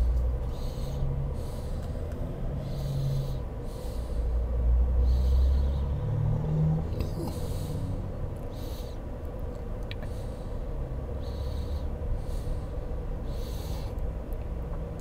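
Steady whir of the GMC Sierra EV's air conditioning running in the cab during DC fast charging, with a steady hum and some low rumbling that swells and fades.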